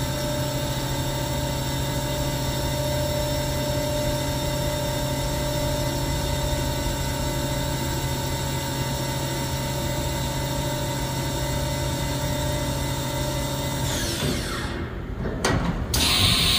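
Haas VF-6/40 CNC machining center's CAT-40 spindle running unloaded at a steady speed with an even whine, then spinning down about 14 seconds in. Near the end there is a loud, noisy burst as the side-mount tool changer arm swaps the tool in the spindle.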